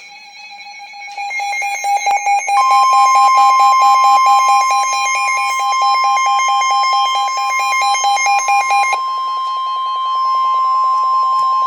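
Emergency Alert System warning tones: a rapid, even electronic beeping, joined about two and a half seconds in by a continuous higher steady tone.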